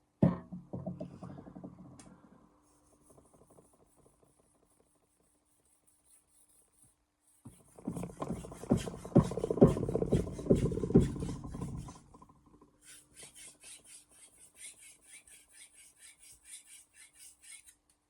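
Steel knife blade stroked back and forth on a Shapton Glass 4000-grit whetstone, working up a burr. A short run of strokes comes at the start, a louder run of rapid strokes in the middle, and a lighter, evenly paced series of scraping strokes near the end.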